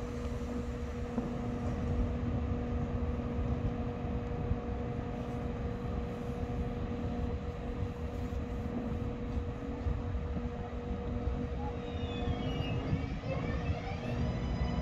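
A BM 72 electric multiple unit stands at the platform with a steady electrical hum. About twelve seconds in, a high whine of several tones sets in and glides in pitch, the traction motors starting up as the train begins to pull away.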